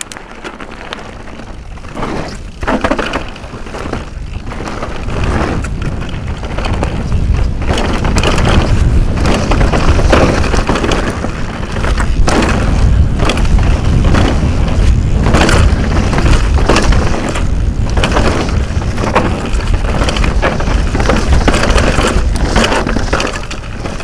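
Downhill mountain bike descending rough dirt and gravel trail, heard from a helmet camera: wind rushing over the microphone and tyres on loose ground, with constant rattling and sharp knocks from the bike over bumps. It builds up over the first several seconds as speed picks up, then stays loud.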